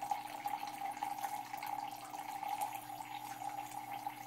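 Small water pump driven by an Arduino PWM signal, giving a steady high whine as the pulsed signal drives its magnets while it pumps water.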